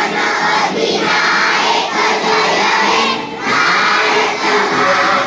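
A large group of schoolchildren singing together in unison, in short phrases with brief breaks between them.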